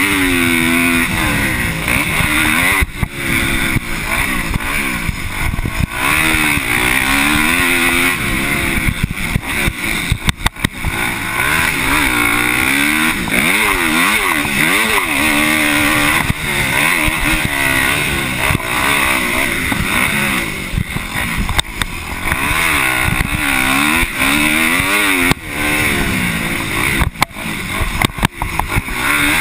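A 250cc motocross bike engine ridden hard, revving up and down through the gears and corners, its pitch climbing and falling every second or two with brief sharp dips where the throttle is chopped. Air rushes over the chest-mounted microphone throughout.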